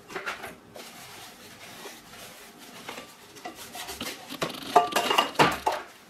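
Sponge brush dabbing in a small glass bowl of foamy solution and knocking against the glass, with soft handling rustle and a quick run of clinks and knocks a little before the end.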